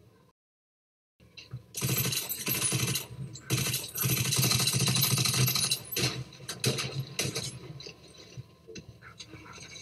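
Rapid gunfire with rounds striking a car, a dense volley of sharp cracks and metallic hits starting about a second and a half in, then thinning to scattered shots and impacts.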